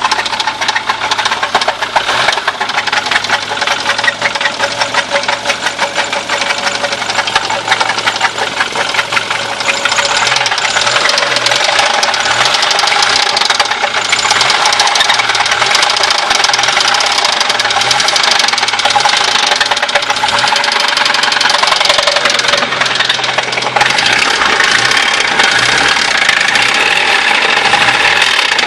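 Audi 80 B4 engine running with a rapid, continuous knocking that keeps pace with the engine, the fault the car is being shown for. It grows louder about ten seconds in and again near the end.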